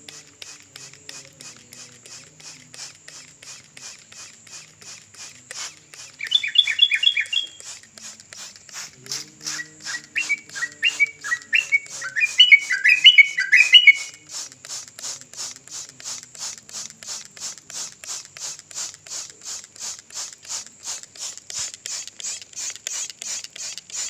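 Caged sooty-headed bulbul (trucukan) singing two loud bursts of quick chirping phrases, a short one about six seconds in and a longer one from about nine to fourteen seconds. Behind it a steady pulsing chirp repeats about three times a second throughout.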